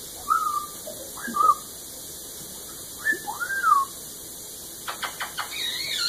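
Blue-fronted Amazon parrot whistling: a short gliding whistle at the start, another about a second in, and a longer rising-then-falling whistle about three seconds in, followed by a few quick clicks near the end.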